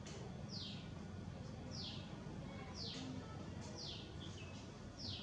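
A bird calling over and over, a short high note falling in pitch, repeated about once a second, with a steady low background rumble.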